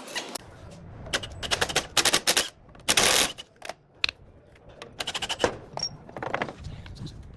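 Impact wrench rattling in several short bursts, running bolts on the front suspension of the car.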